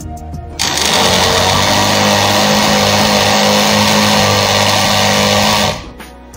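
Electric juicer-blender motor running at full speed while it mixes cake batter in the jar, a loud steady whirr with a constant hum. It switches on about half a second in and cuts off near the end.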